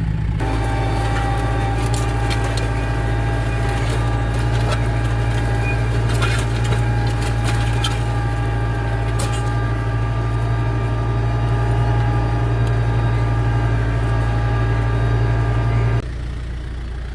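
Farm tractor engine running steadily under load while pulling a disc harrow, with a few sharp clanks and rattles. About a second before the end the engine drops suddenly to a quieter, lower idle.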